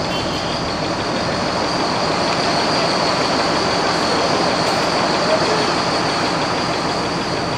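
Steady road and engine noise of a moving vehicle, with a steady high-pitched whine running over it.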